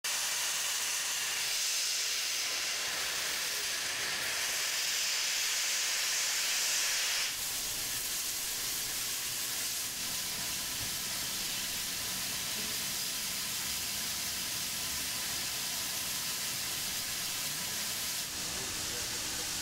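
Steady hiss of steam escaping from the Norfolk & Western Class J 611 steam locomotive. About seven seconds in, the sharp high hiss drops away to a duller hiss with a low rumble under it.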